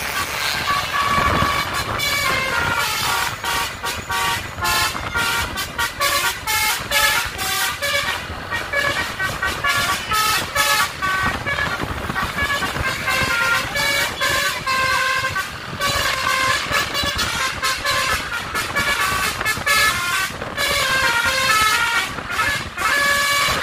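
Bus basuri horn (multi-tone telolet horn) playing a fast tune, one note after another in quick steps with short breaks, over the rumble of road traffic.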